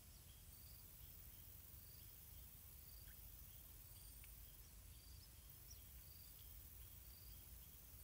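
Near silence: faint outdoor background with soft, high insect chirps repeating about once a second.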